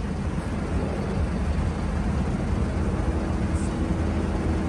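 Tow truck engine running with a steady low hum. A faint steady whine joins it about three seconds in.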